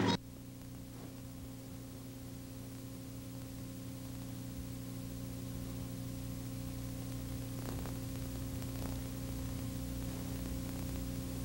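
Steady electrical hum with several pitched lines under an even hiss, growing slightly louder over the stretch, with two faint clicks in the middle.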